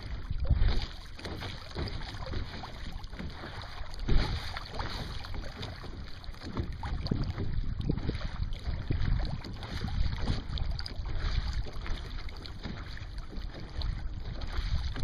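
Wind buffeting the microphone over the wash of water along the hull of a Sunfish sailboat under sail, in uneven gusts with a louder one about four seconds in.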